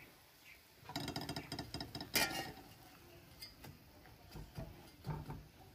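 Metal spatula clinking and scraping against an aluminium pan and dish, busiest about a second in, with one sharp clink about two seconds in, then a few light taps.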